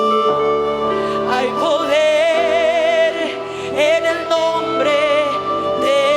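Church worship music: a voice holding long notes with vibrato over sustained chords and bass notes.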